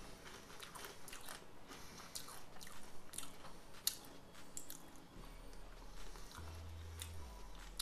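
A tortilla chip being bitten and chewed, a run of irregular crisp crunches.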